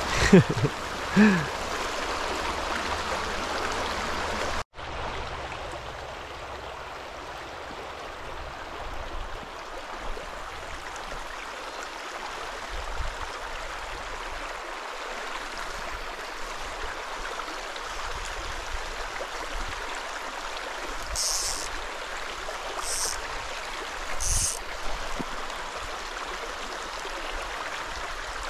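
Watauga River water flowing steadily, a continuous rushing wash, with the sound cutting out for an instant about five seconds in.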